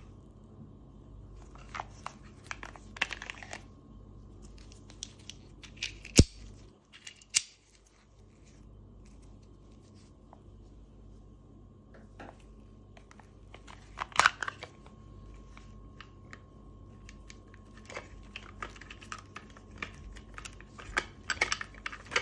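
Clicks and small metallic rattles of a Bersa Thunder 9 Pro CO2 airsoft pistol being handled. There is one sharp, loud click about six seconds in, a cluster of clicks near the middle, and a run of small clicks near the end as a CO2 capsule is fitted into the grip.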